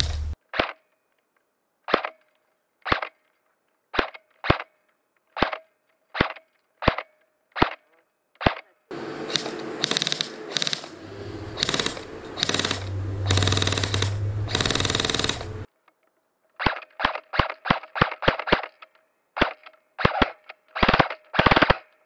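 Airsoft P90 firing sharp single shots, about one every half second to one second, then a stretch of steady noise with a low hum and shots in it in the middle, and quicker strings of shots near the end.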